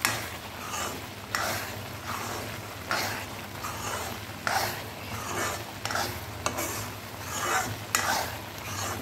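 A metal spoon scraping and stirring thick, sticky mawa in an iron kadhai, with a light sizzle of ghee underneath. The strokes repeat about three times every two seconds: the mawa is being worked continuously so it does not catch and burn on the bottom.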